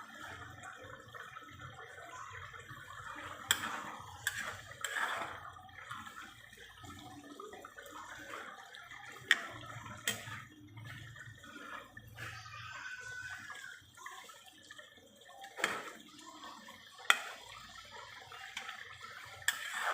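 Water or liquid sounds in a kitchen, with a few sharp clinks scattered through.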